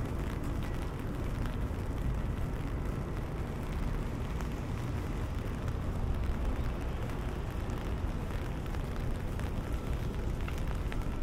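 Rain ticking on an open umbrella overhead, over a steady low rumble.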